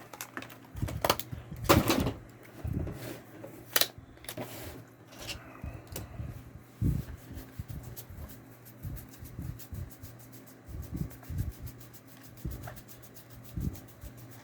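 Trading cards and trial-deck packaging handled on a table: scattered rustles, taps and light knocks, with a sharp click about four seconds in, then softer handling.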